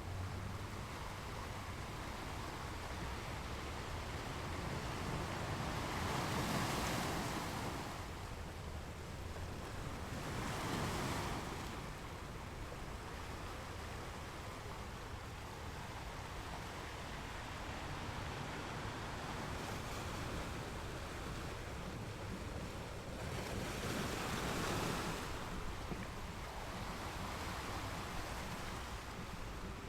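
Small waves breaking and washing up a sandy beach, a steady hiss of surf that swells three times, at about six, ten and twenty-four seconds in, with a low rumble of wind on the microphone.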